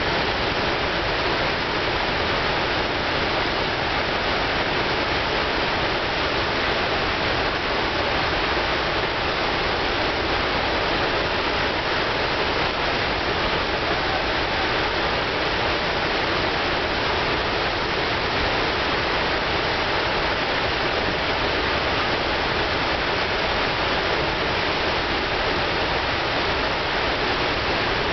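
A large river waterfall in flood: high, fast water pouring over the falls, making a steady, even rushing.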